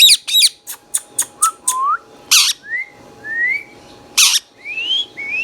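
Indian ringneck parakeet calling: a harsh call, a quick run of sharp chips, then two loud rasping screeches with short rising whistled notes in between.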